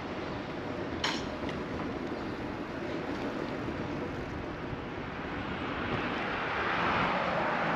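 City street noise heard from a moving bicycle: a steady hiss of traffic, tyres and wind, with a sharp click about a second in and the noise swelling near the end.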